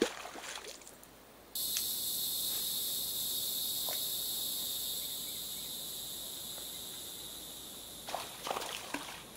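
Steady high-pitched insect chorus that starts abruptly about a second and a half in and slowly fades. A sharp click at the very start, and near the end clicks and rustling as a rod and reel is handled and cast.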